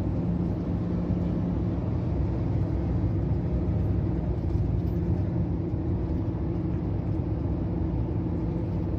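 Heavy truck cruising at a steady speed, its engine and tyre rumble heard from inside the cab as an even low drone with a constant hum.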